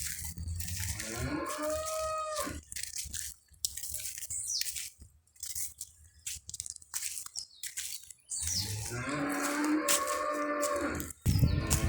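Cattle mooing: a short moo about a second in, then a longer drawn-out moo from past the middle, with another starting at the end. Scattered small clicks and ticks come in the quieter stretch between the calls.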